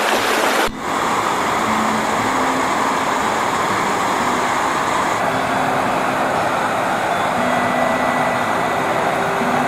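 Steady rushing of fast-flowing water from a waterfall or mountain river, with a brief dip under a second in.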